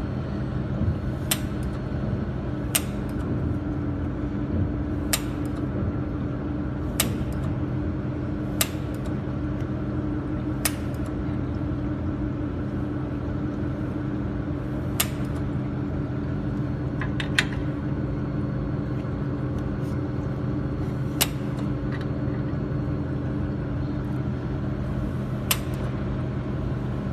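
Jewelry laser welding machine running with a steady hum, and about ten single sharp snaps spaced irregularly a second or more apart: laser pulses fired as test welds to check the focus.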